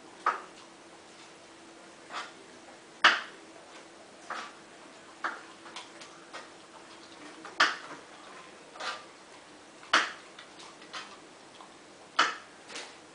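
Alaskan malamute crunching raw asparagus, about ten sharp crisp bites and chews at irregular intervals, a second or so apart.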